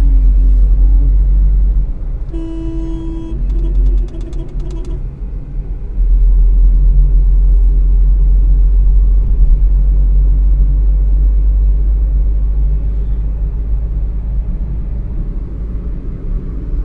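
Low road and engine rumble of a moving Hyundai car, heard from inside the cabin. It is loudest at the start and again from about six seconds in. About two seconds in, a steady pitched tone sounds for about a second, followed by a buzzier pitched sound until about five seconds in.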